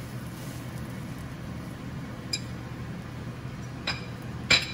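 A metal utensil clinks against a cast-iron skillet three times: about two seconds in, just before four seconds, and loudest near the end, each clink ringing briefly. A steady low hum runs underneath.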